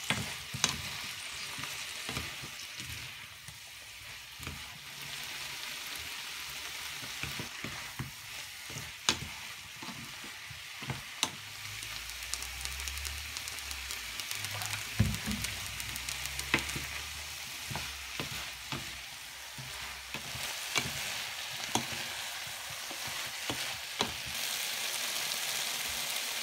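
Sliced eggplant, peppers and onion sizzling as they stir-fry in a wok, with a steady frying hiss. A spatula turning the vegetables scrapes and now and then taps sharply against the pan.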